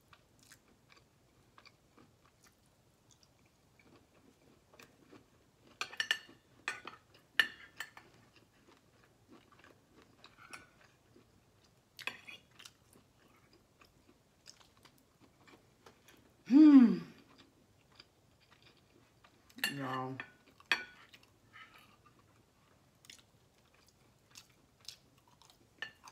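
Close-up chewing and mouth sounds of someone eating, with scattered clicks of a fork on a plate. A loud hummed "mmm" falls in pitch about 17 seconds in, and a shorter one follows near 20 seconds.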